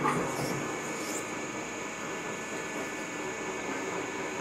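Truck tyre changer machine running, a steady mechanical noise as its bead tool works a truck tyre on the rim, with a sharp knock right at the start.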